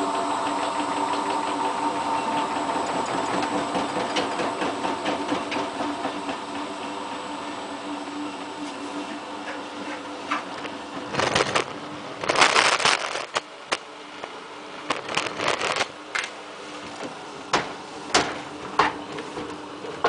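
Hotpoint Ultima WT960 washing machine on a 1600 rpm separate fast spin: the motor and drum hum steadily at a fixed pitch and grow quieter over the first ten seconds. From about eleven seconds in, a run of sharp clicks and knocks.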